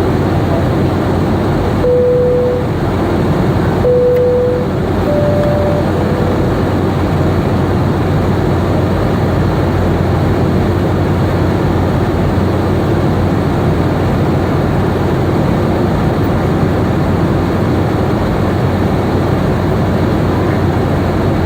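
Steady cabin noise inside a Boeing 717 airliner in flight, the drone of its rear-mounted Rolls-Royce BR715 jet engines and airflow with a low hum. A few short electronic tones sound about two and four seconds in, then two more just after.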